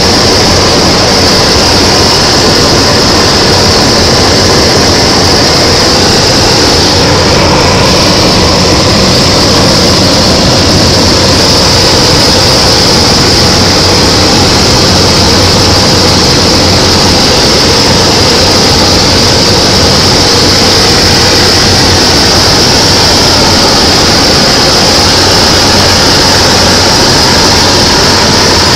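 Steady, loud drone of a small aircraft's engine and airflow in flight, heard inside the cockpit, with a constant high hiss over a low hum.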